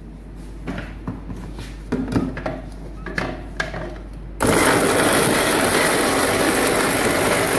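Knocks and clicks as a stainless-steel jar is handled and set on an electric mixer grinder, then about four and a half seconds in the motor starts suddenly and runs with a loud, steady whir, mincing raw chicken pieces in the jar.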